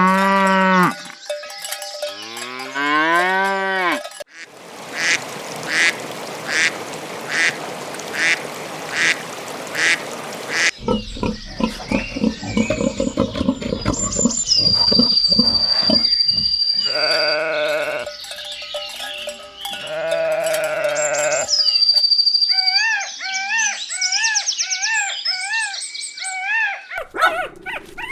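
Farm animal calls one after another: cattle mooing in the first few seconds, then other livestock calls, and quick repeated chirps near the end.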